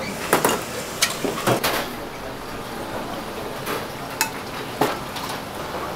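Kitchen clatter: an aluminium pan and ceramic bowls knocking and clinking as a katsudon is slid from its pan onto rice, several sharp knocks, most in the first two seconds, over a steady sizzling hiss from the stove.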